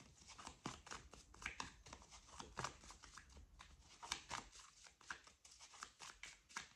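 Tarot deck being shuffled by hand: faint, irregular clicks and snaps of cards sliding against each other, several a second.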